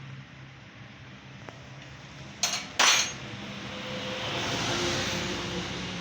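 Two sharp metallic clinks about half a second apart, a little over two seconds in, as metal parts or tools knock together, over a steady low background hum.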